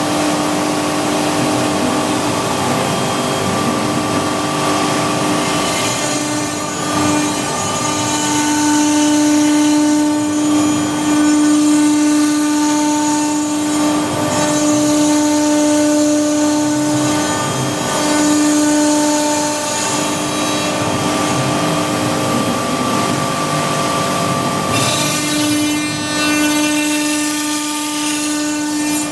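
Polska Grupa CNC router (milling plotter) cutting a cement-bonded particleboard panel: a steady spindle whine over the noise of the cutter, with the tones fading out and returning several times as the cut goes on.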